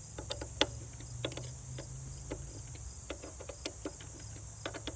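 Irregular light clicks and taps from hands and a wrench checking the blade-cover screws on a DeWalt 735 thickness planer's cutterhead. A steady high cricket trill and a low hum run underneath.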